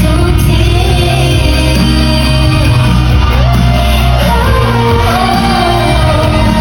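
Loud amplified pop-rock song with a singer's voice over heavy, steady bass, played through a sound system during a sound check.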